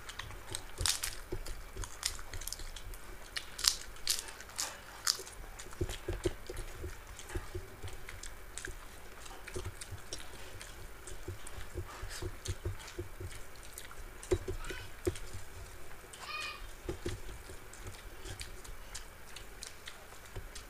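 Two people eating with their hands from steel plates: chewing, crisp crunching and clicking, and fingers squishing and mixing rice and curries. The sharpest crackles come in the first few seconds.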